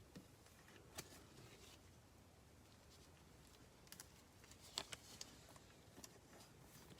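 Near silence: room tone with a few faint, light clicks, one about a second in and a small cluster a little past the middle.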